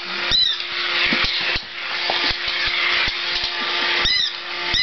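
Battery-powered mechanical toy cat running: its small motor whirs with a steady hum and gear clicks. Short high squeaks repeat about every two-thirds of a second at the start, stop for a few seconds, and start again near the end.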